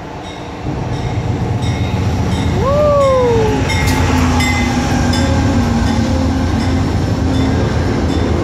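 Train pulling into a station: a heavy low rumble that grows louder about a second in and holds, with a faint steady tone and a few clicks over it. A child gives one short rising-and-falling call about three seconds in.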